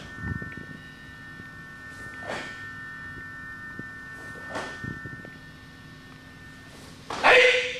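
Karate kata movements: short rushing sounds with a technique about every two seconds and a few soft thuds of feet on the floor, then a loud, short kiai shout near the end.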